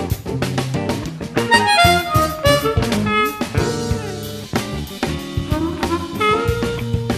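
E-flat diatonic harmonica played in second position (B-flat), cupped around a handheld microphone, playing a solo line over a backing track with drums. About two seconds in it plays a quick descending run of notes, and near the end it plays sliding notes.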